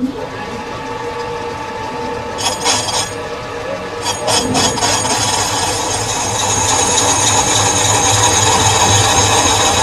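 Metal-cutting lathe running, its tool cutting a spinning metal workpiece with a steady scraping hiss over several held tones. A few clinks come about two and a half and four seconds in, and the cut grows louder from about five seconds on.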